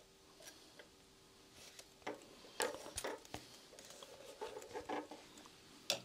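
Faint scattered clicks and taps of small hand handling: tiny metal screws being picked off a magnet and a screwdriver knocking against a metal wallet frame, with a sharper click near the end.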